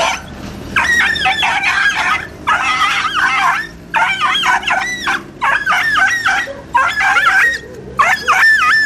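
A stray dog caught in a landing net crying in distress: high-pitched, wavering yelps and screams in about six bouts of roughly a second each. The speaker calls the dog's cry a horrible sound.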